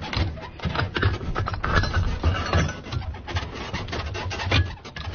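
Reloading an LNG-9 recoilless gun: irregular clatter, scraping and rubbing of the round and metal fittings as a fresh round is handled and pushed into the breech, with a sharper knock near the end.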